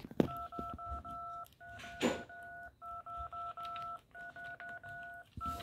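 LeapFrog Chat & Count Smart Phone toy playing touch-tone dialing beeps as its number keys are pressed: runs of rapid two-tone beeps whose upper tone shifts up and down as different keys on the top row are pressed, about once a second. A sharp handling knock comes near the start.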